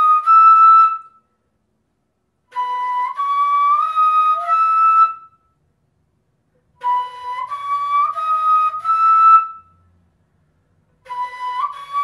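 Pífano (Brazilian cane fife) in G playing a short rising phrase of four notes, B, C-sharp, D-sharp, E, in the upper octave as a repeated technique drill. One phrase ends about a second in, the phrase is played through twice with short pauses between, and it starts again near the end.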